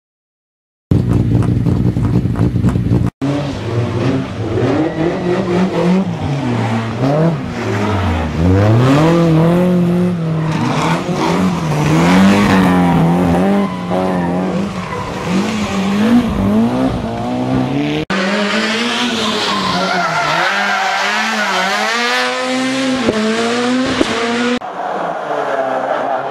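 Rally cars at full speed on a special stage, their engines revving hard and rising and falling with each gear change and corner. The sound starts about a second in and breaks off sharply three times as it switches from one car to the next.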